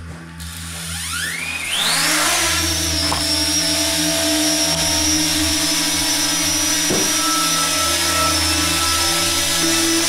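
Parrot Anafi quadcopter's electric motors spinning up with a whine that rises in pitch over about a second, then running steadily with a high whine over a lower propeller hum.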